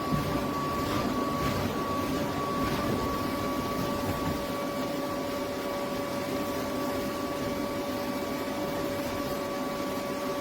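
Electric air blower of an inflatable bouncy castle running steadily: a constant drone with a steady hum in it.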